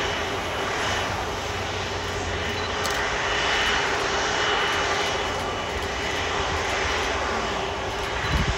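Jet engines of an Airbus A330 airliner running as it rolls along the runway: a steady rushing noise with a faint high whine, swelling a little around the middle.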